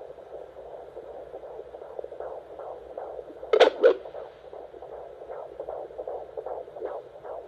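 Fetal heartbeat picked up by a Doppler ultrasound monitor: a fast, rhythmic whooshing pulse at a little over two beats a second. About halfway through come two loud thumps close together, the sound of the baby moving.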